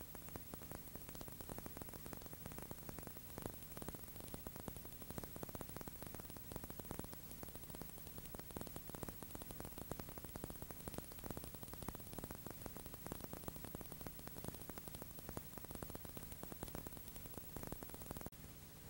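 Recording noise with no sound of the scene itself: a steady hiss and a low mains-type hum under dense fine crackle. The crackle stops abruptly about eighteen seconds in, leaving only the hiss and hum.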